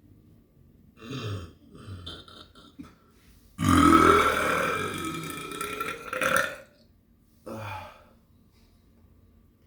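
A person burping: one long, loud burp of about three seconds in the middle, its pitch sliding, with shorter sounds before it and one short burp after.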